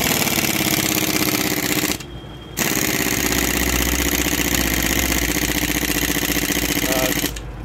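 Impact wrench hammering as it tightens a crankshaft nut on a motorcycle engine, in two runs: a short one of about two seconds, then a brief pause, then a longer one of about five seconds.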